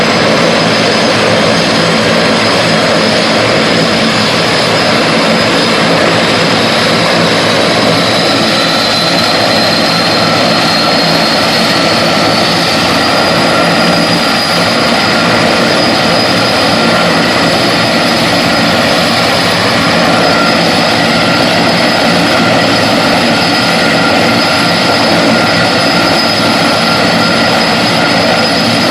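Firefighting helicopter's turbine engines and rotor running loud and steady, with a high turbine whine that rises slowly in pitch from about eight to thirteen seconds in, then holds.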